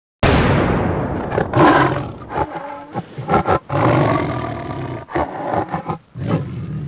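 Loud animal roars, several in a row with short breaks between them, starting suddenly.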